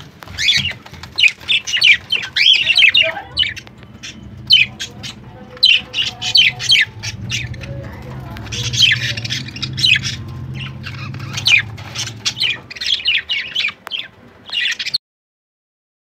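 Budgerigars chattering and squawking: runs of short, high chirps and squawks, with a low steady hum underneath. The sound cuts off suddenly near the end.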